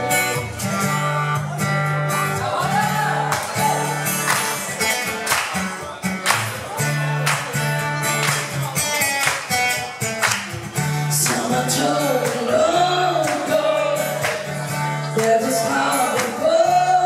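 Live acoustic pop-rock: a strummed acoustic guitar with steady low notes, joined after a couple of seconds by a woman singing into a microphone.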